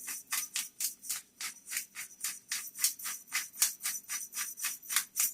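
Black pepper being added from a pepper container, worked in quick, even, scratchy strokes of about four or five a second.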